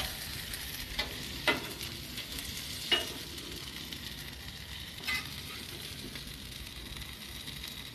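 Steak strips and bell peppers sizzling on a hot flat-top griddle, a steady hiss, with a metal spatula scraping and clicking against the griddle plate four times in the first five seconds.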